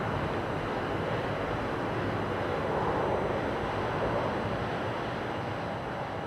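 Jet engine noise from a departing Boeing 747-400 freighter climbing away after takeoff: a steady, even sound that slowly grows fainter.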